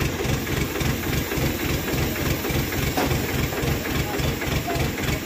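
Diesel engine idling with a steady, even low throb.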